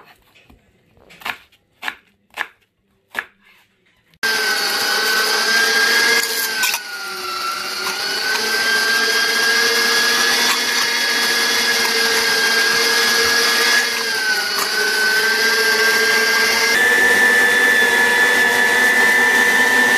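Electric meat grinder mincing beef and onion: a few knocks, then about four seconds in the motor starts with a loud, steady whine. Its pitch sags twice as meat is pushed in and the grinder labours through the unfrozen beef.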